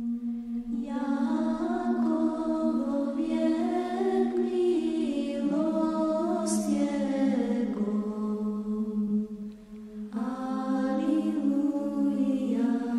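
Orthodox church chant: voices sing a slow melody over a steadily held drone note. There is a short break about ten seconds in before the next phrase begins.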